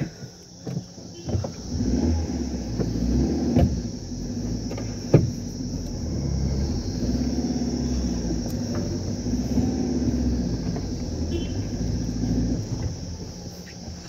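Car engine and road rumble heard from inside the cabin while driving, low and steady, with two sharp knocks a few seconds in. A faint, steady insect chorus sounds over it.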